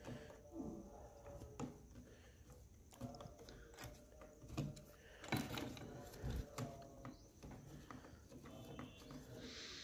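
Faint, scattered clicks, scrapes and small knocks of a hand tool working a tight nut loose on a circuit board inside a plastic instrument chassis.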